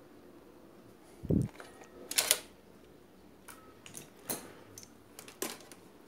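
Hard plastic flyback transformer housings being handled and set down: one low thump about a second in, then a scatter of sharp clicks and clacks.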